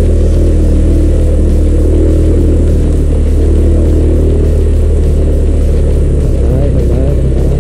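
Motorcycle engine running steadily while the bike rides along, heard loud from on the bike.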